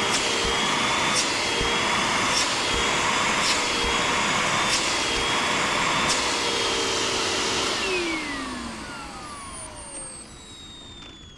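Hoover WindTunnel ReWiNd bagless upright vacuum running at full speed with a steady whine and a faint tick about every second and a quarter. About eight seconds in it is switched off and the motor winds down, its whine falling in pitch.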